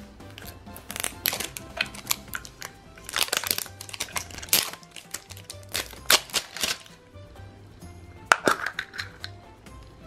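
Plastic shrink-wrap crinkling and tearing as it is peeled off a small plastic blind capsule, then one sharp click about eight seconds in as the capsule is pulled open. Soft background music plays underneath.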